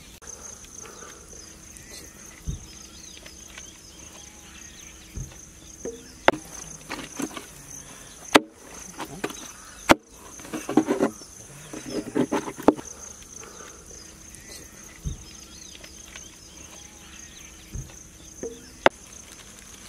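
Insects trilling on one steady high note. Over it come scattered clinks and crinkles of aluminium foil food containers being handled and filled, busiest about ten to thirteen seconds in.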